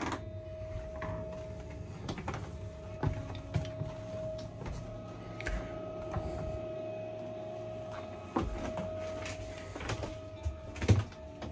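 Knocks and clicks of someone moving through a small wooden boat cabin, with a louder thump near the end, over a steady hum.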